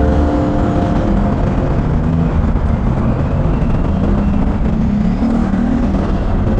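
Steady low rumble of a road vehicle under way, with a faint engine hum that wavers slightly in pitch.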